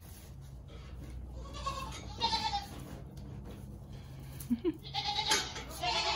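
Newborn Nigerian Dwarf goat kids bleating in high, wavering calls: a pair of bleats about two seconds in, then more from about five seconds on. A sharp tap sounds among the later bleats.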